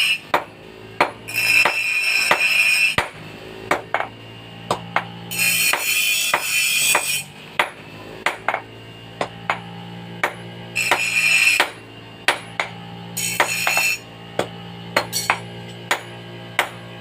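Hammer blows on steel at an anvil, struck about twice a second in an uneven rhythm with a ringing ping. Several times, for a second or two at a time, a louder high-pitched noisy sound comes in over a steady low hum.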